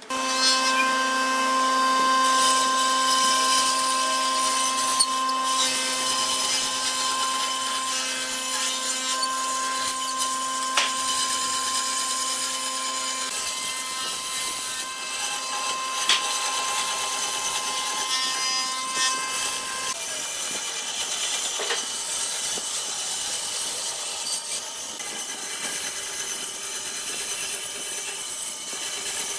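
Band saw running and cutting a curve through a panel of wooden pallet slats: a steady hum and whine over the hiss of the cut, with a few sharp ticks.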